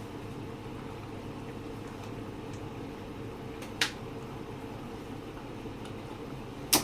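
Steady low room hum with two short, sharp clicks, one about halfway through and one at the very end.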